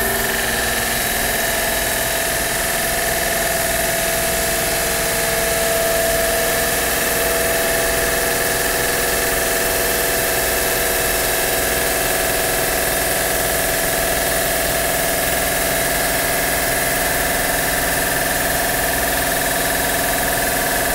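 A Park Voyager CNC bridge saw ripping a stone slab, its blade cutting steadily as the head feeds along the cut. The sound is a steady whine over a broad hiss.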